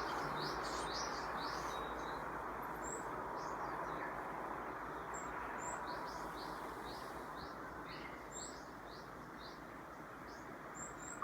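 Small songbird chirping: a quick run of short high chirps at the start, then a longer run of about a dozen evenly spaced chirps from around six seconds in, with a few sharper single high peeps between, over a steady background hiss.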